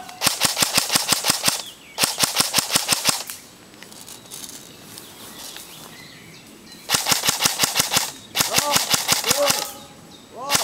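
Airsoft rifle firing four full-auto bursts of rapid, evenly spaced shots, about a dozen a second: two bursts in the first three seconds and two more from about seven seconds in.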